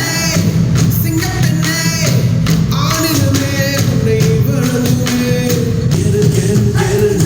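A song with a singing voice and a steady beat, played through the two-way bass-reflex speakers of a Philips FW 326 mini hi-fi system.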